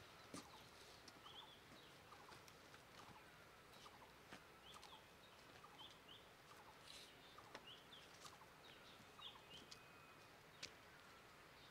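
Near silence of an open hillside with faint, short bird chirps repeating irregularly, every second or so, and a few soft clicks.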